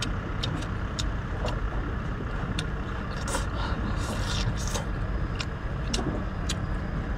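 A steady low rumble with scattered short clicks and smacks of a man chewing and eating with his mouth close to the microphone.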